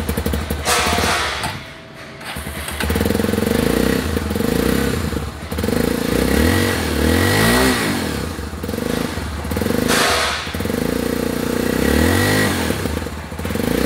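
Honda Tornado 250's single-cylinder four-stroke engine running and being revved, its pitch rising and falling in several throttle blips from about three seconds in. The engine pops ("truena"), which the rider thinks means the carburettor needs a tune because the bike has seen little use.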